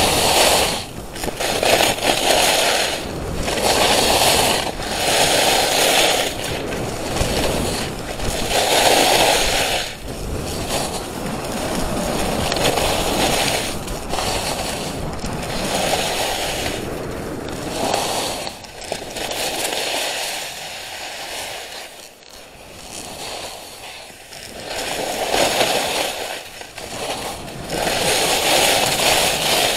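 Skis carving and scraping across snow through a series of turns, a swell of hissing scrape every second or two, easing off for a few seconds after the middle before picking up again.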